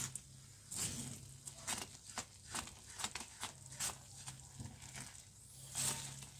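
Thick strawberry jam boiling in a steel pan while a spatula stirs it: irregular soft plops, clicks and scrapes, over a faint steady hum.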